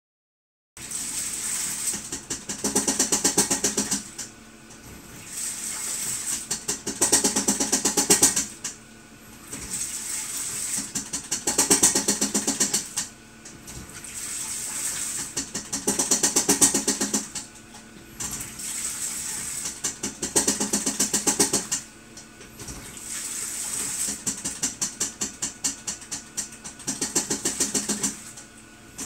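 Hitachi BeatWash BW-8PV washing machine agitating a wash load, water sloshing as the drum turns one way and then the other, with a loud, rapid rattle (karakara) in a burst about every four seconds, which the owner thinks comes on the reverse turn. The fault was traced to the motor, which was replaced to cure it.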